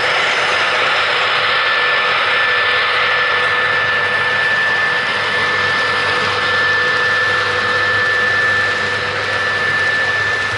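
A model train of CSX ES44AC diesel locomotives and refrigerator cars running past, giving a steady mechanical hum with a thin steady whine over it.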